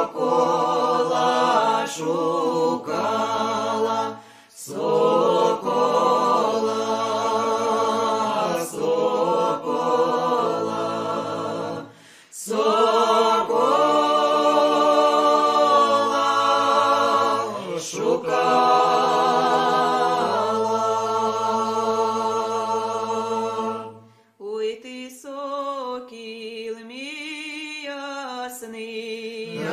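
Unaccompanied choir singing a Ukrainian folk song in long, held phrases, broken by short breath pauses. About 24 seconds in, it drops to a quieter, thinner phrase.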